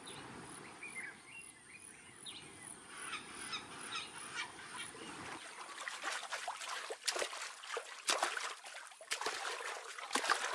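Quiet mangrove swamp ambience: a few thin bird chirps in the first seconds, then many small clicks, drips and trickles of water, with rings spreading on the water's surface.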